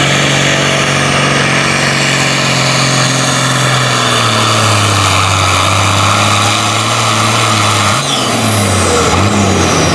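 John Deere 4320's turbocharged six-cylinder diesel running hard at the end of a pull, its pitch stepping down about four seconds in and falling again near the end as the pull is stopped. A high whistle slides down near the end.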